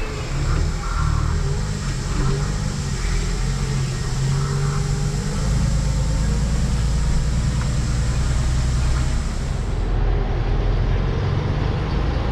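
A truck's engine running steadily, heard inside the cab, as the truck descends a mountain road towing a loaded trailer, with road noise. A high hiss in the mix stops about ten seconds in.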